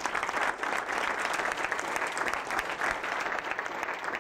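Small audience of seated people clapping: steady applause.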